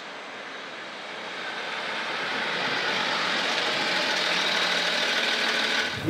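A car approaching along the road, its tyre and engine noise growing steadily louder over the first few seconds and then holding as it draws up.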